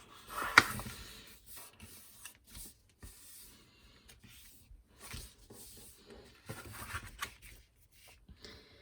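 A sheet of paper being folded in half and creased by hand: soft rustling and crinkling in short bursts, with a sharp crackle of the paper about half a second in.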